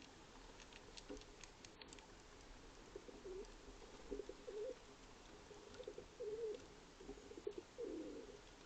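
Common pigeon (rock pigeon) cooing softly, a series of low, wavering coos from about three seconds in, with a few faint ticks before them.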